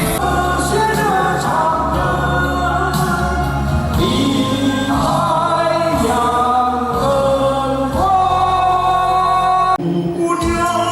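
Singing with instrumental backing, where the singing reads as several voices. It cuts abruptly to a different passage of music near the end.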